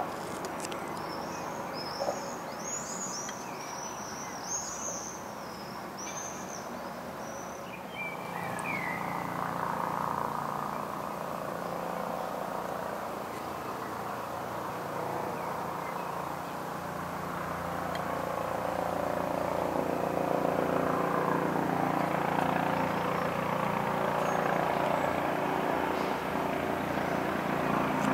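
Eurocopter EC135 twin-turbine helicopter flying overhead: a steady rotor and engine drone that grows louder through the second half. A songbird sings over the first several seconds.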